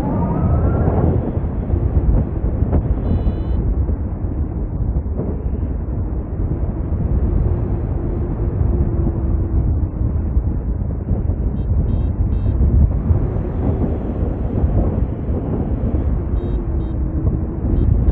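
Wind rushing and buffeting over the microphone in flight under a paraglider, a steady low rumble with no let-up. A few faint, short high beeps sound through it now and then.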